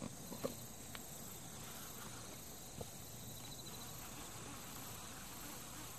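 Insects chirring steadily in a high, even drone, with a few faint clicks in the first second.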